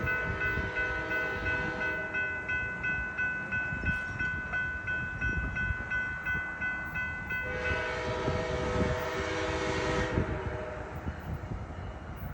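Train running with a low rumble of wheels on rail, its horn sounding a chord for about two and a half seconds from roughly the middle of the stretch. Before the horn, a high-pitched set of tones pulses about three times a second.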